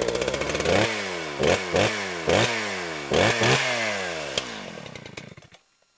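A small engine revving in a series of sharp blips, its pitch dropping away after each one, then fading out near the end.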